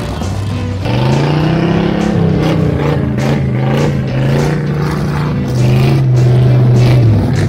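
Ford F-100 pickup's engine revving hard in long, held pulls, pitch rising then falling back, stepping up again near the end, as the truck spins its rear wheels in mud.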